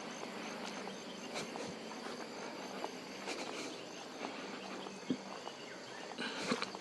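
Outdoor ambience: a steady hiss under a thin, high insect-like trill that breaks into short pulses partway through, with scattered light clicks.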